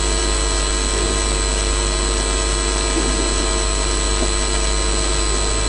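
A loud, steady drone that cuts in suddenly: a low rumble with several fixed, unchanging tones over a hiss, holding constant throughout.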